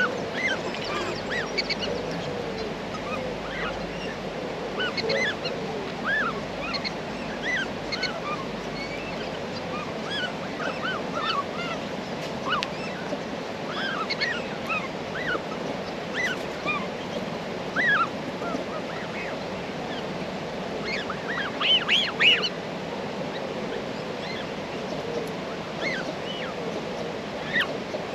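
Black swan cygnets peeping while they feed: many short, high calls scattered throughout, with a louder cluster of calls about 22 seconds in, over a steady background hiss.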